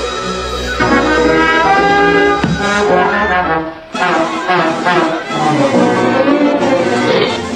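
Orchestral music with brass to the fore, playing shifting phrases; it dips briefly just before four seconds in and resumes with a new passage.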